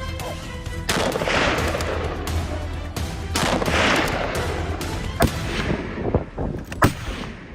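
Rifle shots over background music: two reports about a second in and about three and a half seconds in, each trailing off over about a second, then a few shorter sharp cracks near the end.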